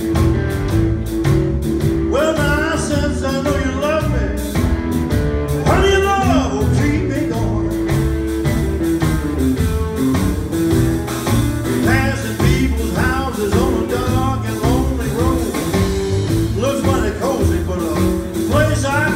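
Live electric blues band playing, with a steady bass and drum groove under a lead line that bends and slides in pitch.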